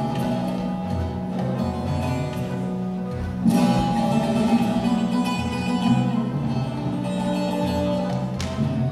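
A Turkish music ensemble playing an instrumental passage of a bozlak, a Turkish folk song, on plucked string instruments over a sustained low accompaniment.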